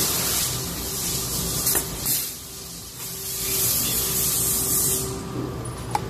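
Scorpio YU-RV101 pneumatic blind rivet gun hissing compressed air. The hiss fades early, then comes back for about three seconds, with a short sharp click between the two hisses and another near the end.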